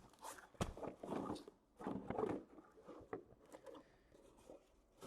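Trading-card boxes and their packaging being handled and opened: soft scrapes, taps and rustling with a few sharp clicks, busiest in the first couple of seconds and then only light ticks.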